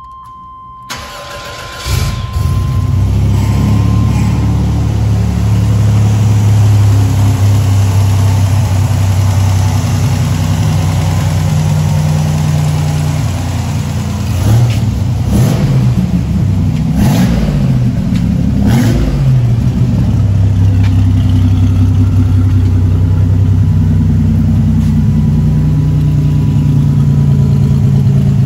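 1987 Buick Regal Turbo T (WE4) turbocharged 3.8-litre V6 starting: it cranks briefly and catches about two seconds in, then idles steadily. Around the middle it is revved three times and drops back to idle. A steady electronic chime tone sounds over the start.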